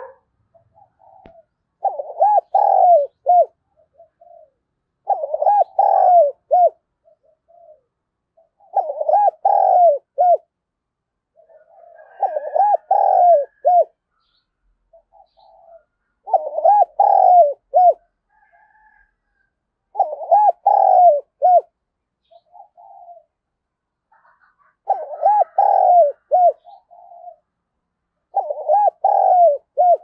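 Spotted dove cooing its challenge song, the call used to provoke rival males to fight. It repeats a multi-note coo phrase of about a second and a half, eight times, roughly every four seconds.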